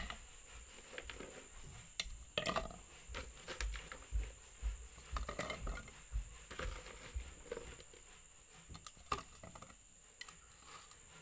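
Garlic cloves, shallots and ginger dropped by hand into a glass blender jar, a scattering of light clicks and taps against the glass.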